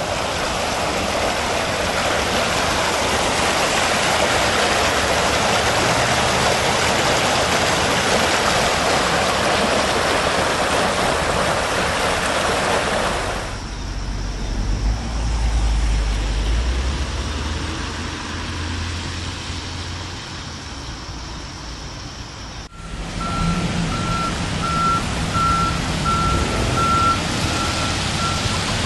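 Swollen stream's floodwater rushing loudly and steadily, then, after an abrupt change, a quieter stretch with a low rumble. Near the end a truck's reversing beeper beeps steadily over engine noise.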